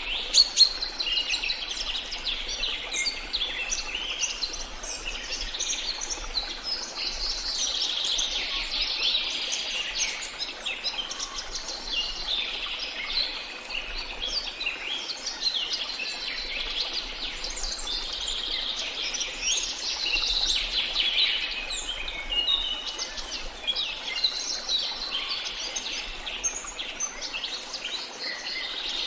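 A chorus of many songbirds chirping and trilling at once, with overlapping calls. There is one sharp click about half a second in.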